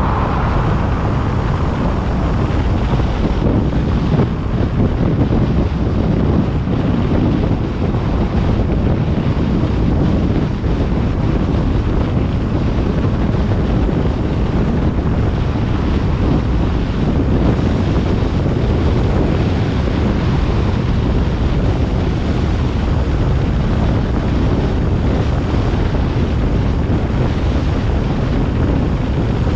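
Wind buffeting the microphone of a moving car, a steady loud low rumble mixed with road noise.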